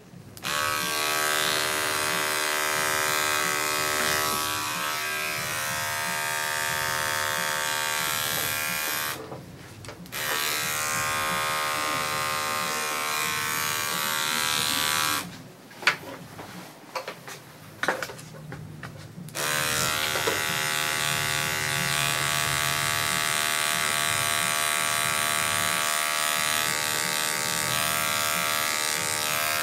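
Electric dog grooming clipper running with a steady pitched hum as it cuts through the dog's coat. It stops for about a second around nine seconds in, and again for about four seconds in the middle, when only a few clicks are heard, then runs on to the end.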